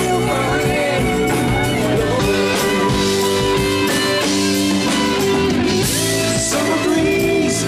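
A live rock band playing: electric guitars, bass guitar, drum kit and keyboards, with sustained guitar notes over a steady drum beat.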